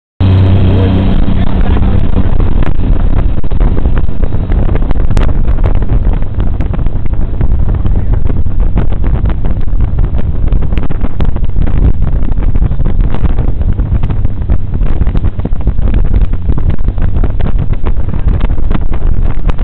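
Jet boat engine running at speed with heavy wind buffeting on the microphone. A steady engine hum is clear in the first second or so, then wind noise largely covers it.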